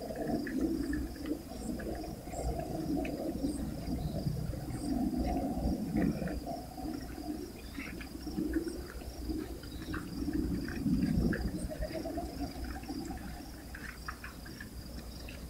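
Crickets chirping in a steady, fast, even pulse, with scattered faint bird chirps, over a low rushing noise that swells and fades every second or two.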